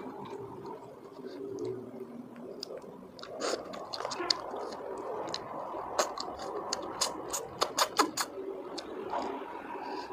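Close-miked eating of golden apple snails: chewing and sucking the meat from the shells, with a quick run of sharp clicks and smacks between about six and eight seconds in.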